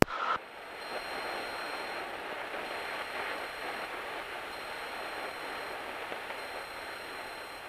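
Steady rushing cabin noise of a Cessna 172 climbing out after takeoff, engine and airflow blended into an even hiss. It cuts in suddenly from near silence with a click and a brief tone.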